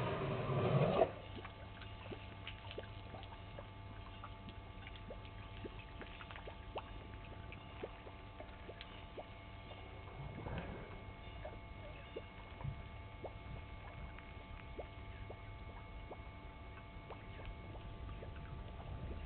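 An African elephant drinking at a waterhole: a gush of water poured from its trunk into its mouth stops abruptly about a second in. A faint background with scattered small ticks and a steady low hum follows.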